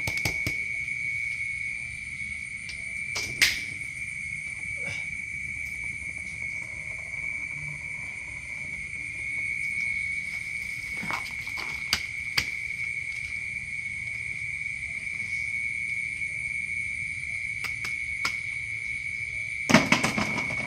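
A cricket trilling steadily in one high, unbroken tone, with a few scattered knocks from the plastic basket and basin being handled, a cluster of them near the end.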